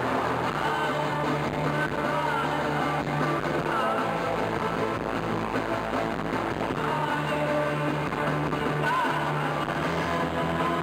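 Live rock band playing, with a voice singing over the band.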